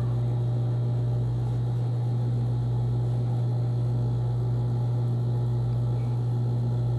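Steady low electric hum of the sewing machine's motor running while the machine is not stitching.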